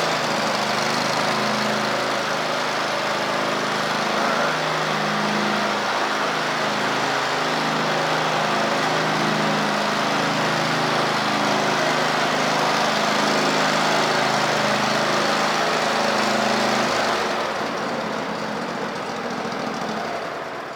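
John Deere L130 riding mower's 23 hp Kohler V-twin engine running steadily, dying away near the end.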